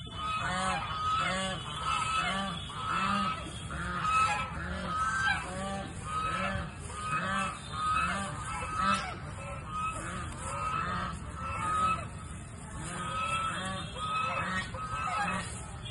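White domestic geese honking repeatedly in a steady run of short calls, about two a second.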